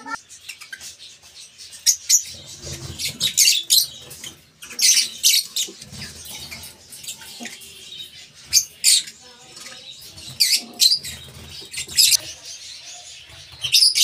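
Lovebirds in a straw-lined nest pot giving many short, sharp, high-pitched chirps and squeaks in quick irregular bursts.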